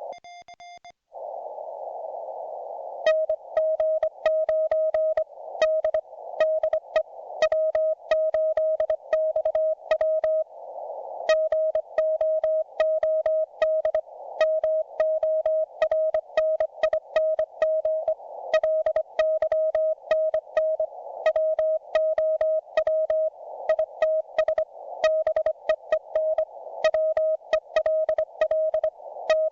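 Morse code (CW) audio from a YouKits HB-1B QRP transceiver: a steady tone around 650 Hz keyed into dots, dashes and spaced characters at conversational speed. Receiver hiss starts about a second in and swells in the gaps between characters. A sharp click marks the start of each keyed element.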